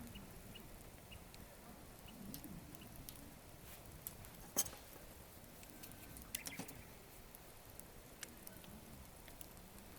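Small wood campfire crackling faintly, with sparse sharp pops, the loudest about halfway through and a quick cluster soon after. The fire is of gathered deadwood and burns weakly.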